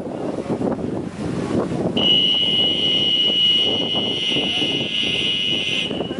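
Kayak polo referee's whistle: one long, high, steady blast starting about two seconds in and lasting about four seconds, over wind noise on the microphone.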